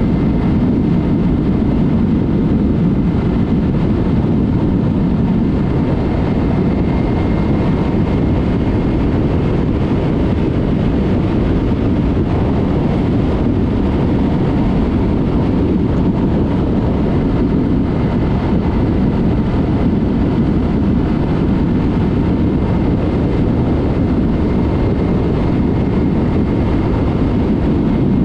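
Yamaha MT-03 with a Mivv aftermarket exhaust cruising at a steady speed. Its parallel-twin engine runs under a steady rush of wind noise, with no revving or gear changes.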